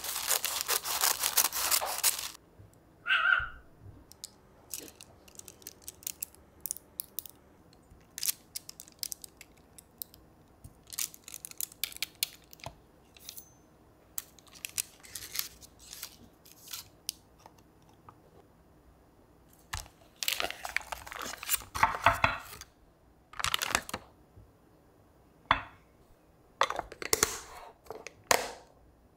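Paper and foil wrapping crinkling and tearing as a block of butter is unwrapped, sliced and interleaved with paper separators, with many small taps and clicks on the countertop. Louder bursts of rustling come at the start and again in two spells near the end, and one short high chirp sounds about three seconds in.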